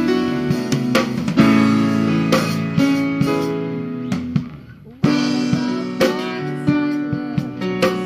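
Instrumental passage of a live worship song: guitar strumming held chords over a band, with a brief break about four and a half seconds in before the playing comes back in.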